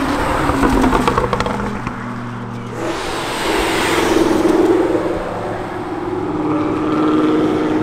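Cars accelerating away one after another. A blue Ford Mustang is loudest as it passes, about halfway through; its engine note then holds and climbs slightly as it pulls away.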